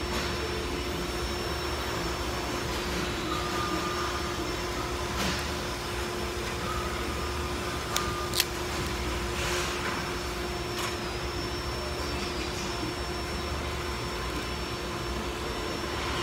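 Steady machine hum with a constant tone, and two sharp snips close together about eight seconds in from a hand wire stripper cutting insulated wire.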